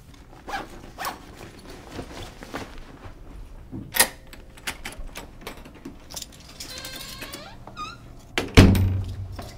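Household handling noises: a run of small clicks and knocks, a short squeak about seven seconds in, then a heavy thunk with a low ring near the end.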